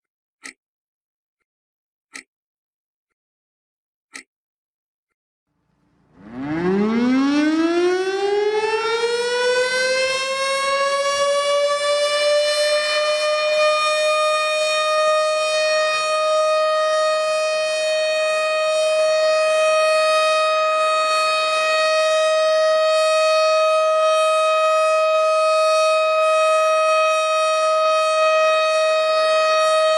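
A few faint clicks, then about six seconds in a civil-defence siren starts, rising in pitch for several seconds and then holding one steady tone. This is the commemorative siren sounded on 10 November to mark the moment of silence for Atatürk.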